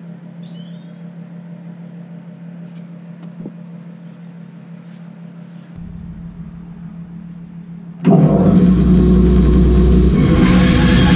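Faint steady hum, then about eight seconds in a bandsaw is switched on and runs loudly and steadily with a deep rumble.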